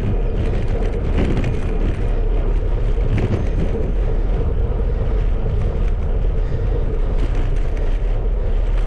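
Bicycle rolling along a gravel track: steady tyre noise and rumble with a few brief rattles, and wind buffeting the microphone.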